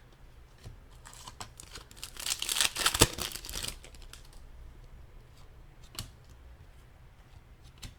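Trading-card pack wrapper crinkling and tearing open, in a burst about two seconds in with a sharp snap near three seconds, followed by a couple of light clicks of cards being handled.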